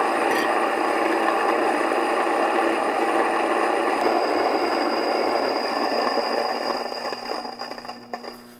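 Mockmill 100 countertop stone grain mill grinding einkorn grain between its bed and runner stones: a loud, dense, gritty grinding over the steady hum of the motor. The grinding thins out and fades over the last second or two, leaving the motor hum.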